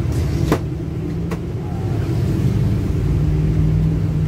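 A bus engine and its road noise heard from inside the passenger cabin: a steady low drone, with two brief sharp knocks about half a second and just over a second in.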